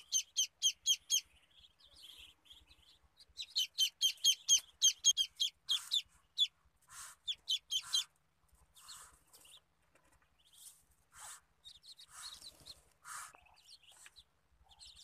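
Newly hatched Muscovy ducklings peeping: runs of short, high, rapid peeps, about five a second, loudest near the start and again from about four to eight seconds in, with softer noisy bursts in the second half.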